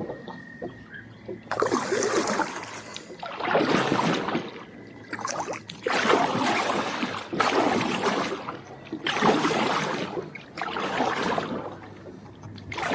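Kayak paddle strokes in the water, a splashing swish about every one and a half to two seconds as the boat is paddled along.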